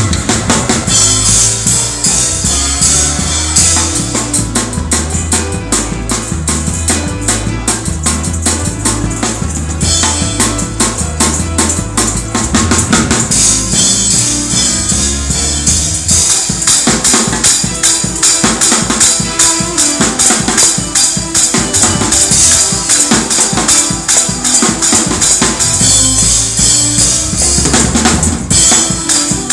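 Drum kit played at a fast praise-break tempo: rapid snare and bass drum strokes under constant cymbal wash. For about the first half a bass line moves underneath, then drops out, leaving the drums hammering alone.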